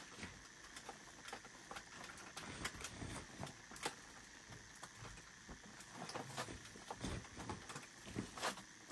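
Clothes being laid and pressed into a blue woven-plastic IKEA bag: soft, irregular rustling and crinkling of fabric and bag, with a few sharper crinkles.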